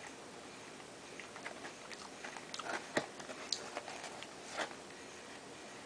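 Someone chewing a mouthful of Spicy Bites, a cluster of small wet clicks and crunches that is loudest about three seconds in.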